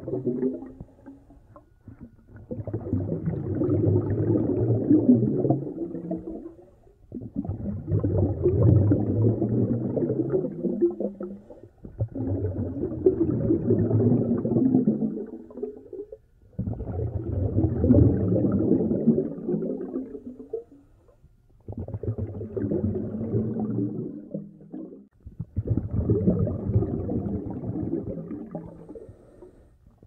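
Scuba diver breathing through a regulator underwater: slow, repeated breaths with bubbling exhalations, each lasting a few seconds, with short pauses between them.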